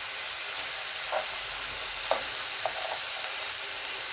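Collar bacon slices sizzling in hot oil in a frying pan: a steady hiss with a few brief pops in the middle.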